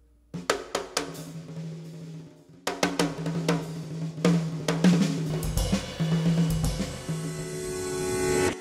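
Background music led by a drum kit, with sharp drum hits over a held low note, building in a swell near the end and stopping suddenly.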